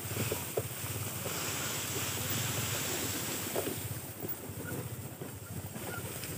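Enduro dirt bike engine running steadily on a downhill grass trail, with wind noise on the microphone.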